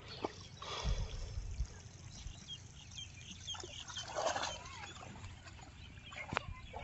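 Water splashing and sloshing as bare feet wade through a shallow muddy channel, in a few short bursts, with a sharp click about six seconds in. Short bird chirps sound in the background.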